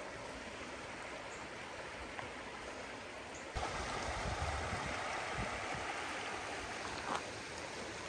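Shallow creek water running over rocks, a steady rushing that gets louder and brighter about three and a half seconds in.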